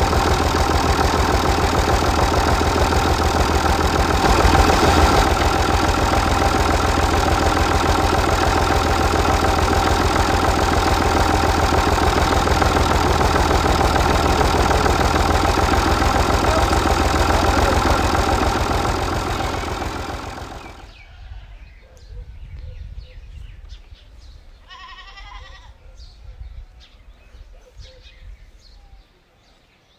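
A small engine running steadily with a rapid, even firing beat, fading away about twenty seconds in. In the quieter part that follows, a goat bleats briefly.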